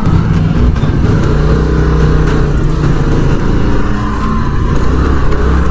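Motor scooter's small engine running steadily as it is ridden, with wind rumble on the camera's microphone.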